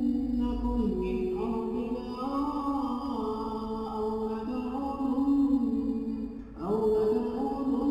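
A man's voice reciting the Quran in a slow, melodic chanting style, holding long drawn-out notes that step up and down in pitch, with audio effects added in Audacity. It breaks briefly about six and a half seconds in, then a new phrase begins.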